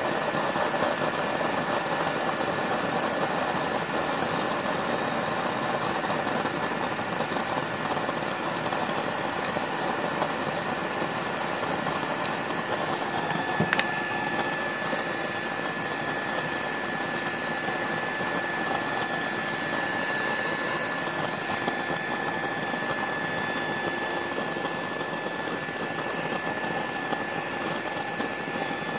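Steady rush of forced air from the blower feeding a used-oil stove burner, running without a break. About halfway through there is a single sharp click, and from then on a steady high whine sounds above the rush while the burner is alight.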